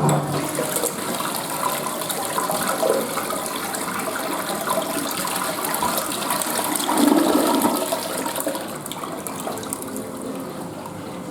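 Western-style flush toilet flushing: water rushes into the bowl and drains with a sudden start, swells about seven seconds in, then eases off near the end.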